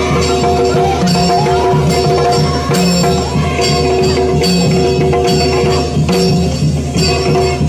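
Yakshagana ensemble music: a steady drone under percussion, with small hand cymbals struck about once a second.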